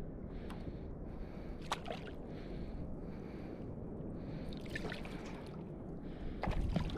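Sea water sloshing and lapping against a boat in a quick, even rhythm, over a steady low rumble, with a few sharp clicks.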